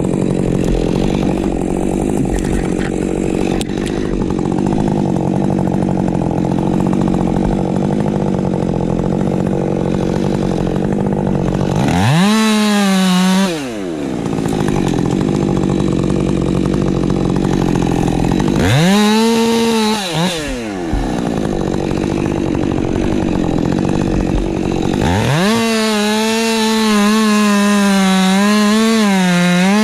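Ported Husqvarna 550 XP Mk II chainsaw running steadily under load for about twelve seconds. It then revs up and drops back twice, around 12 and 19 seconds in. From about 25 seconds it holds at high revs, its pitch wavering.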